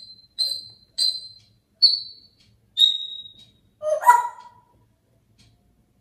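African grey parrot whistling: a run of short high whistles about a second apart, the last one longer and slightly lower, then a louder, lower, rougher call about four seconds in.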